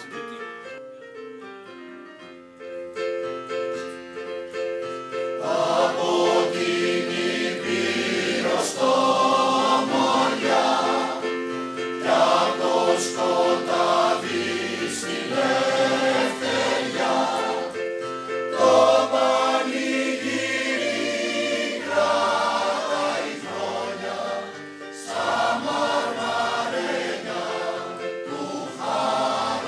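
Mixed choir singing with digital piano accompaniment. The piano plays alone at first, and the voices come in a few seconds in and carry on in sung phrases.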